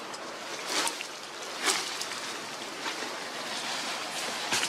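Footsteps and brushing through dry leaf litter and undergrowth: about four short crunches and rustles over a steady background hiss.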